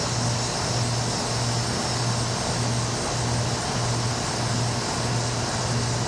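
A low, steady machine hum that throbs evenly, about three beats every two seconds, over a constant background hiss.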